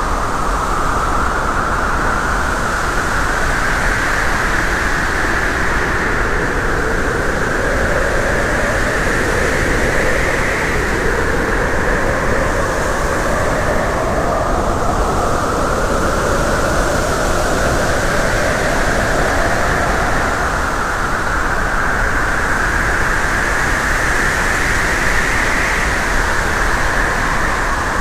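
Steady road and wind noise of a car being driven, with a hum that slowly rises and falls in pitch as the speed changes.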